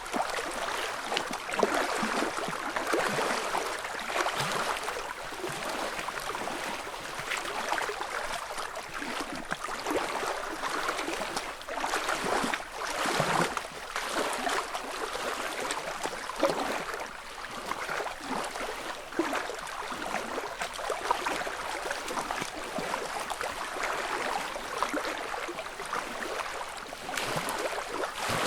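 Small lake waves (ripples) lapping on the shore: a steady wash of water broken by many small, irregular splashes and gurgles, with no steady rhythm.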